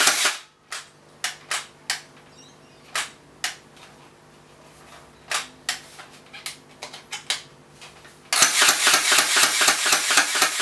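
M4 Terminator gel ball blaster firing: a rapid burst cuts off just at the start, then about a dozen single shots at uneven spacing, then a long rapid-fire burst begins near the end.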